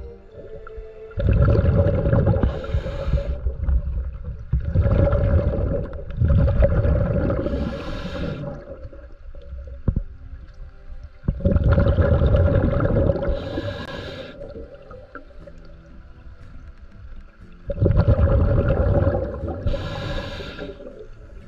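A scuba diver breathing underwater through a regulator: five loud rushes of exhaled bubbles, each with a hiss, spaced a few seconds apart.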